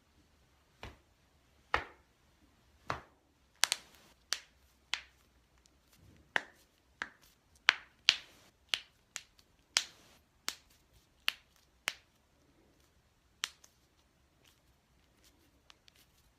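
Joints cracking during a manual adjustment: a string of about eighteen sharp pops at uneven intervals, closest together in the middle, stopping a few seconds before the end.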